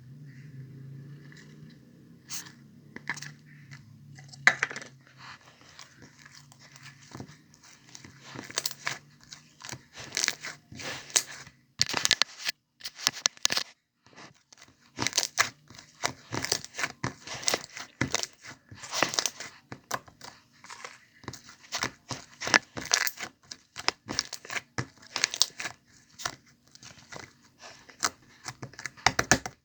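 Honey slime being squished and stretched by hand, giving dense irregular sticky clicks and crackling pops that start about two seconds in.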